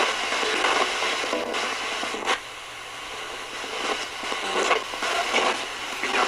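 A ghost box, a Radio Shack 20-125 radio scanning the FM band, played through an amplifier: a continuous hiss of static chopped up by brief snatches of stations as it sweeps. It drops quieter for about a second about two and a half seconds in.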